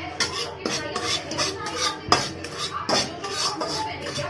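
Metal spatula scraping and clinking against a metal pan in quick, irregular strokes while stirring semolina and gram flour as they roast for halwa. One sharper clink about two seconds in is the loudest.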